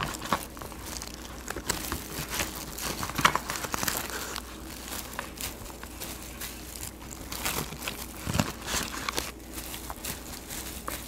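Crinkling and rustling with small irregular clicks as rice mixed with flying fish roe is squeezed and shaped into rice balls by hand, with a soft knock about eight seconds in.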